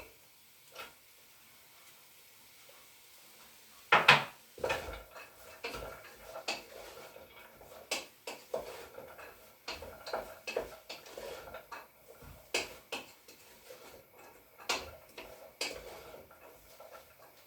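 Diced celery being tipped into a cooking pot with a clatter about four seconds in, then a spoon stirring the vegetables and knocking against the pot at irregular intervals.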